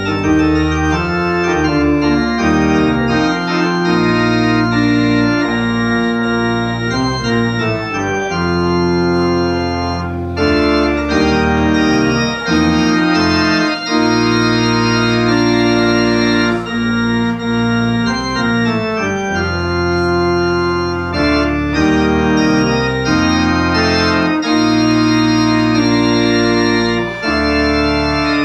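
Organ playing slow, held chords over long, deep bass notes, the chords changing every second or two with brief breaks between phrases.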